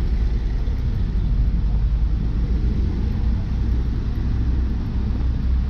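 Deep, steady rumble of a moving vehicle.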